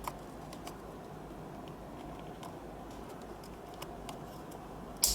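Small plastic ticks and clicks from handling steering-wheel wiring connectors, with one sharp click about five seconds in as a connector snaps into place.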